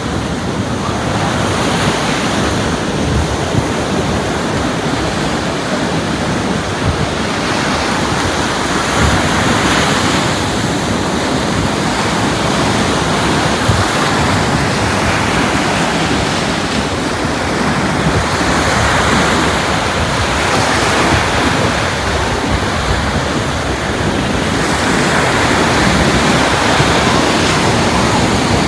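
Ocean surf breaking and washing up a sandy beach. The noise of the waves swells and eases every few seconds.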